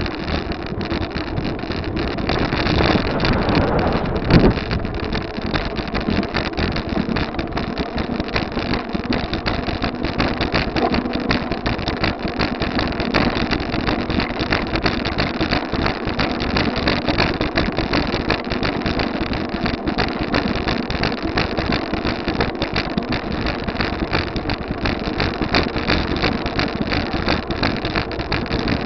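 Wind buffeting the microphone of a bike-mounted camera while riding, a steady, loud rushing noise with constant rapid flutter. A single thump about four seconds in.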